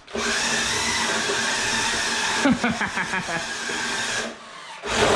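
Electric motor and gears of a 1/10-scale Radio Shack Acura RSX remote-control car whining steadily as it drives. It cuts out for about half a second a little past four seconds in, then starts again.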